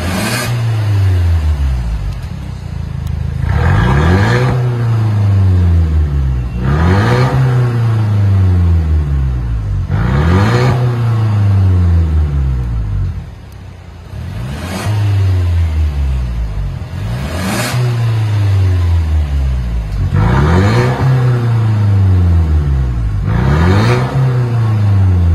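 Mercedes W205 C-Class engine revved in short blips through an aftermarket cat-back exhaust with valvetronic valves. About eight revs rise and fall, roughly every three seconds, with the engine settling to idle between them. The first revs are heard with the exhaust valves closed, the later ones with the valves open.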